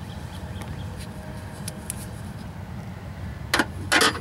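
Metal wrench clinking against the AC line fitting while it is being loosened: a few light clicks, then three sharp clinks near the end, over a steady low rumble.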